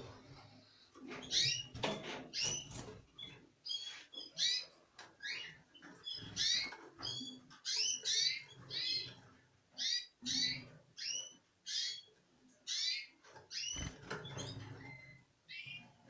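Small caged finches chirping: short, high, arching calls repeated about once or twice a second, several birds overlapping.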